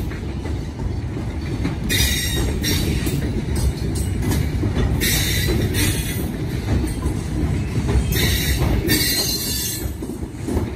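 Loaded hopper cars of a sand and gravel train rolling past: a steady low rumble of wheels on rail, with high wheel squeal coming and going every few seconds.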